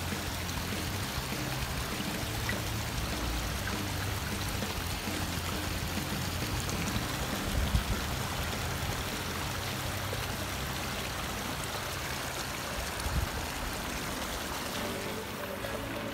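Steady rushing of flowing river water, with a couple of brief low bumps about 8 and 13 seconds in.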